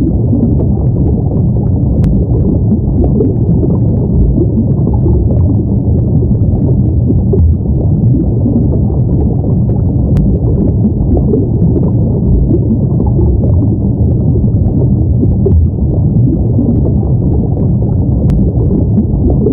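Underwater ambience: a steady, deep, muffled rumble of water with a churning texture and no clear highs.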